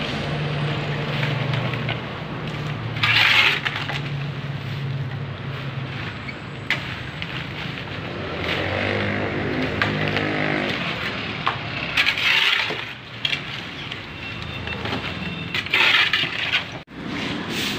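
Rubbish and debris, including glass, being scooped and dropped into a plastic drum: clattering, clinking and scraping, with a few louder crashes.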